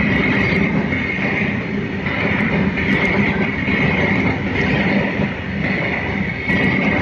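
Long freight train of tank wagons rolling steadily past close by: a continuous rumble of wagon wheels on the rails with a high, steady whine running through it.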